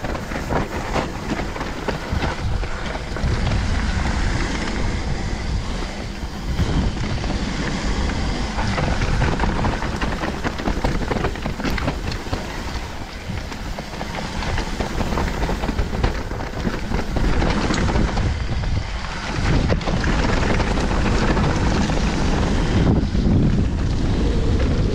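Wind buffeting the microphone over the clatter and rattle of a mountain bike descending a rough trail at speed, with frequent knocks over bumps.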